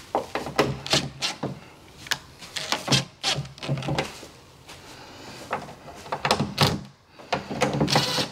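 Irregular knocks, thuds and clicks of an in-wall speaker being handled and fitted into a drywall cutout, with some rustling in between.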